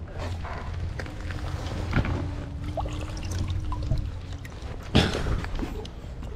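Water sloshing and splashing against a boat's side as a jack crevalle is grabbed and lifted out, with a sharper splash about five seconds in. A steady low rumble runs underneath.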